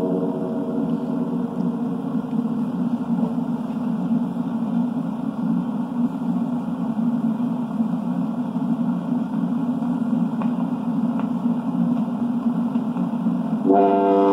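Foghorn sound effect from a 1930s 78 rpm record: one blast dies away in the first second, a steady low rumble carries on for about twelve seconds, and a new loud blast starts near the end.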